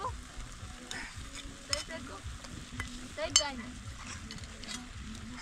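Egg and tomatoes sizzling in a frying pan as beaten egg is poured in and stirred with a metal spoon, with a few light clinks and a short, sharp squeak about three seconds in that is the loudest moment.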